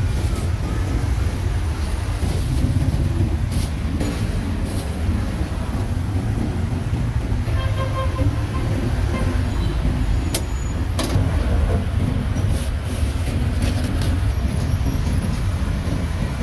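Busy street traffic: a steady low rumble of passing vehicles, with a short horn-like tone about eight seconds in and a few sharp knocks, the clearest about ten and eleven seconds in.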